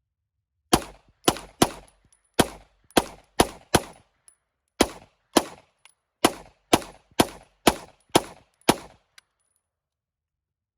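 Semi-automatic gunfire: about fifteen quick shots fired in two strings with a short pause between them, each a sharp crack that dies away fast.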